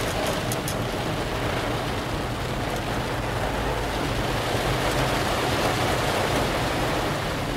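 Heavy rain pouring steadily onto a car's roof and windshield, heard from inside the cabin as an even hiss, with the car's engine and road noise running low underneath.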